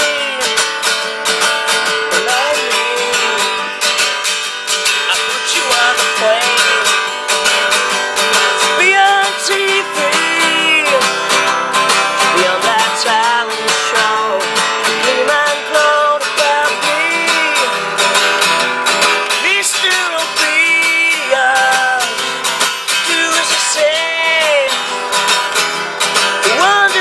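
Acoustic guitar strummed steadily in a country-folk song.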